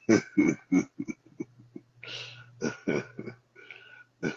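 A man laughing in a string of short bursts and breathy gasps.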